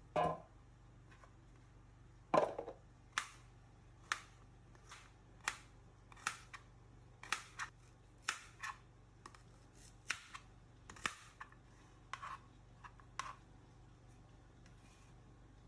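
Food-preparation cutting sounds: a series of about twenty sharp, crisp clicks or snips at an irregular pace, roughly one every half second to second. They stop about 13 seconds in, over a faint steady low hum.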